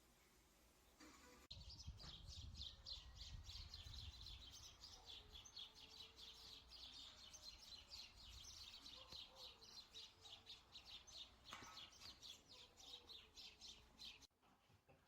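Rapid, evenly repeated high-pitched chirping, about five chirps a second, over a low rumble. It starts abruptly a second and a half in and cuts off shortly before the end.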